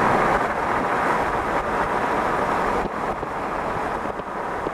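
Steady rush of wind and road noise from a car driving at speed, easing slightly about three seconds in.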